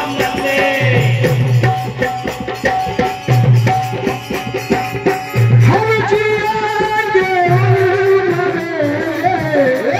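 Live Indian folk devotional music: a hand drum keeps a steady beat under a held instrument tone, and a singing voice comes in about halfway through.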